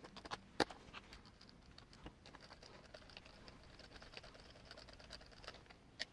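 Faint, scattered clicks and taps of small RC wheel and tire parts being handled and fitted, with one sharper click about half a second in.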